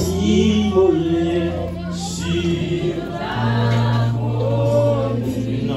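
Worship singing in church: a group of voices sings a slow refrain over long, held low notes, and the low note steps up to a new pitch about halfway through.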